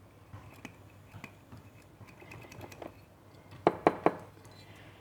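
Small clicks and light scraping of a tool working inside a Zippo lighter's flint tube to clear old flint residue. Three sharp knocks follow quickly together a little under four seconds in.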